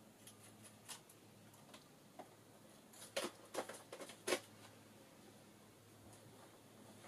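Quiet room with a faint steady electrical hum, broken by a few light clicks and then a quick run of four or five sharper clicks about three to four and a half seconds in, as small hard craft items are handled.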